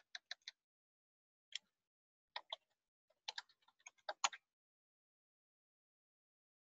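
Faint keystrokes on a computer keyboard, scattered and irregular, with a quick run of key presses about three to four seconds in.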